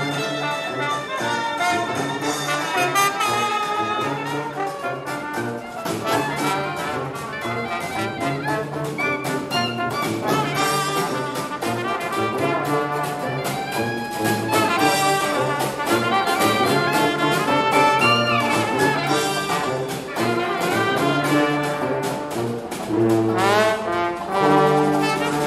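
Traditional jazz street band playing live: trumpets, trombone, tuba and clarinet over banjo and snare drum, with a steady beat. A quick rising run comes near the end.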